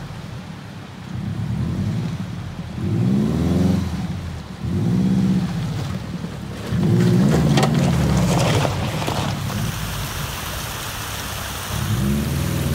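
Subaru Forester XT's turbocharged flat-four engine revving up and down again and again as the car crawls over loose rock. Stones crunch and clatter under the tyres about seven to nine seconds in. Near the end a steady hiss comes in.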